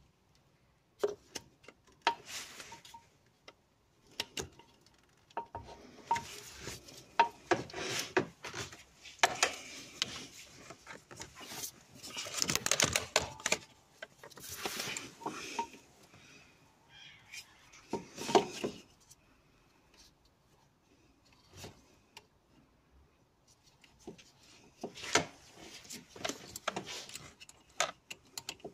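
Irregular clinks, taps and scrapes of hand tools and a gloved hand working on metal and rubber parts in a car's engine bay, in uneven bursts with short quiet gaps.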